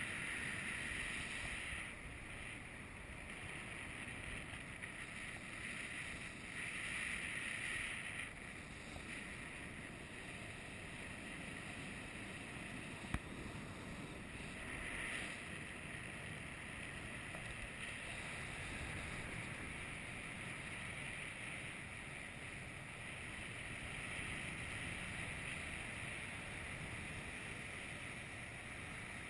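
Airflow rushing over a paraglider pilot's helmet-mounted camera microphone in flight: a steady hiss that swells now and then, with one sharp click about 13 seconds in.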